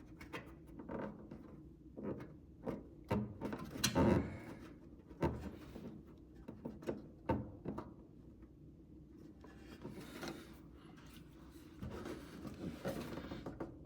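Irregular knocks, clicks and rubbing as a front spoiler is handled and fitted against a car's front end, the loudest knocks a few seconds in.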